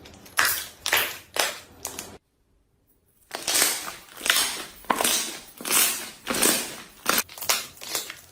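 Slime being squeezed and pressed by hand, a run of repeated squishing strokes about two a second, broken by a brief silence about two seconds in before a longer run resumes.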